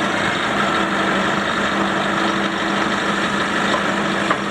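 Forklift engine idling steadily, a constant hum.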